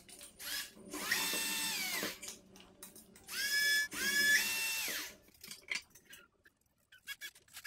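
Small power drill run in two short bursts, each spinning up, holding its pitch and winding down, the second with a brief step up in speed. A few light clicks of handling follow.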